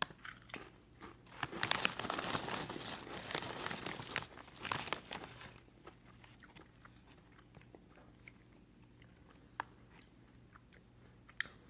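A person chewing potato chips with loud crunching for the first several seconds, thinning out to a few faint clicks after about six seconds.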